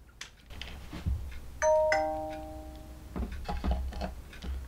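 A two-note ding-dong doorbell chime about a second and a half in, its high note falling to a lower one and ringing out for about a second. Light clicks and knocks follow.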